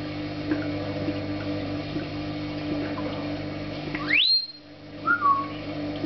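African grey parrot whistling a two-part wolf whistle: a fast rising note held briefly at the top, then a short falling note about a second later. A steady low hum runs underneath.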